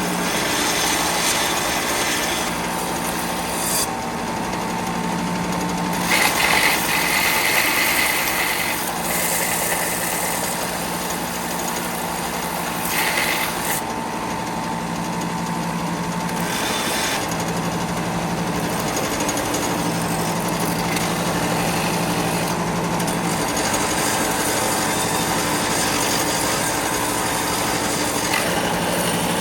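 A power tool runs steadily with a low hum. Its sound brightens in several short stretches as it works.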